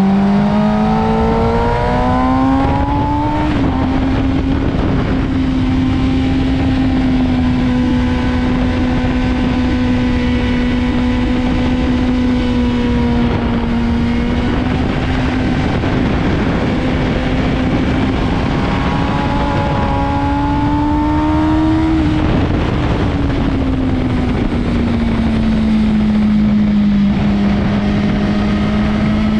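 Motorcycle engine running hard at track speed under heavy wind rush. Its pitch climbs in the first few seconds, holds steady for a long stretch, climbs again about twenty seconds in, then drops away over a few seconds before levelling off.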